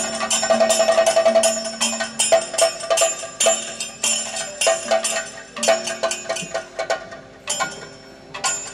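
Kathakali percussion accompaniment: chenda and maddalam drums struck in a rhythm with bright clashing ilathalam hand cymbals, over a steady drone. It thins out and drops in level shortly before the end, then picks up again.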